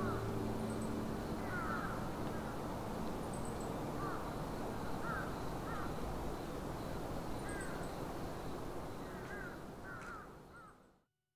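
Birds calling, short curved calls repeated every second or two, with faint high chirps, over a steady wash of outdoor background noise; it all fades out near the end.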